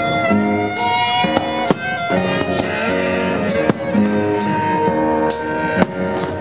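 Music from a pyromusical fireworks show, held notes with a melody over them, cut several times by sharp firework bangs.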